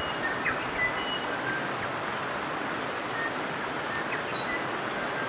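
Steady rush of creek water flowing over stones, with a few brief, high bird chirps scattered through it.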